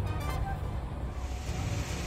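Background music with a steady low bass line. An even hiss of noise, like rushing water or rain, comes up about a second in.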